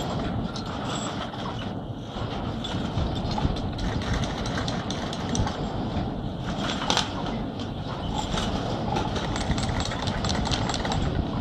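Doppelmayr triple chairlift running: a steady mechanical rumble of the haul rope rolling over the tower sheaves, with a few sharp clicks.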